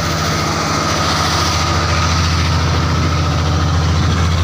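Outrigger fishing boat's engine running steadily underway, a deep continuous drone.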